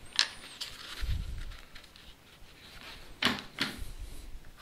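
Thin wooden pads being handled and set down on a wooden workbench: a light click near the start, a low thump about a second in, and two sharp taps a little past three seconds.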